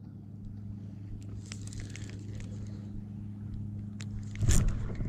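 Fishing reel cranking a topwater lure back quickly, with faint ticks over a steady low hum. About four and a half seconds in comes a sudden loud splash, most likely a bass striking the lure.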